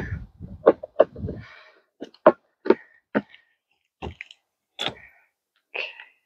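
Plastic compost tumbler parts knocking and clicking as they are handled and fitted together: about ten sharp, irregular clicks and knocks, with some rustling in the first second or so.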